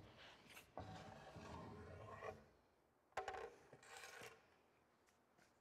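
Faint handling noise of a wooden deadwood piece being worked free and lifted off the keel: a scraping, rubbing slide for about a second and a half, a sharp knock about three seconds in, then a brief scrape.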